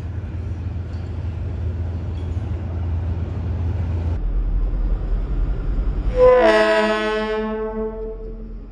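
Diesel locomotive approaching with a steady low engine rumble, then its horn sounds one long, steady blast about six seconds in, the loudest thing here, dying away near the end.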